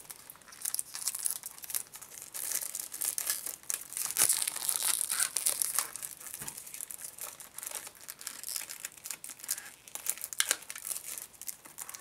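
Plastic packaging of a CD being handled, crinkling and tearing in irregular crackles, with a few sharper snaps.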